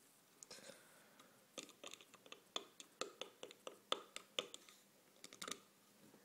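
Quiet, irregular small clicks and taps: the plastic filling cup being handled against a Zippo hand warmer while the last of the lighter fluid is poured in.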